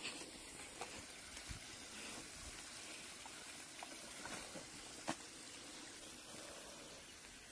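Cow drinking from a tub of feed-mixed water, quiet wet sucking and slurping with a few short sharp splashes.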